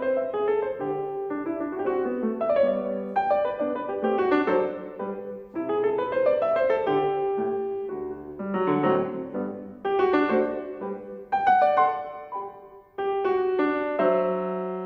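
Steinway concert grand piano played solo: a fast classical passage of quick runs that rise in pitch, settling onto a held chord near the end.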